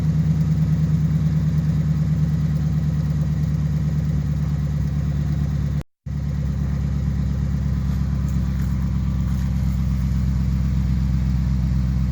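2011 Jeep Grand Cherokee's 5.7 Hemi V8 idling steadily through a Hooker BlackHeart cat-back exhaust, with a super deep tone. The sound cuts out for a split second about halfway.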